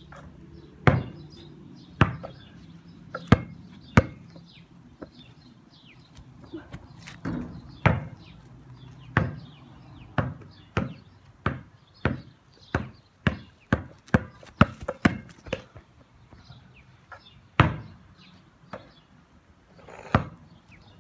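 A basketball bouncing: a string of sharp slaps, a second or so apart at first, then a faster, steadier run of about two bounces a second in the middle, like dribbling.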